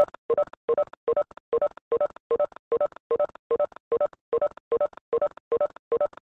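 Electronic beeping: a quick, even run of short double beeps, about two and a half a second, each on the same few pitches, like a phone or call tone.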